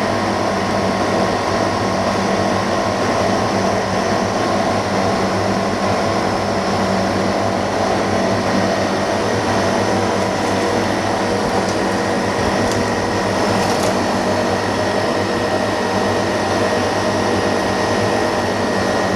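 Steady air-moving hum of a fan running, likely the ceiling fan-and-filter unit of a dust-free workroom, with a faint high whine over it.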